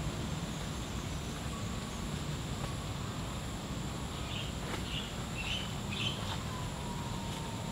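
Forest ambience: a steady, high insect drone, with a few short bird chirps in the middle and a couple of faint clicks.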